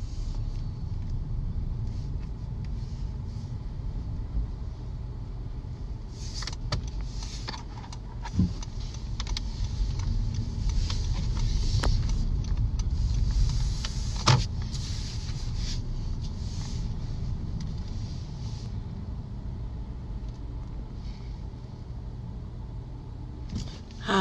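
Car cabin noise while driving slowly: a steady low rumble of engine and tyres, with two short clicks, about eight and fourteen seconds in.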